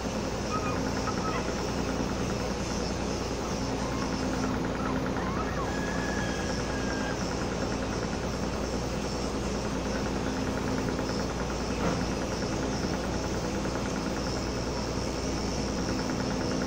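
General cargo ship's diesel engine running steadily while the ship manoeuvres to dock, a continuous low drone heard on deck.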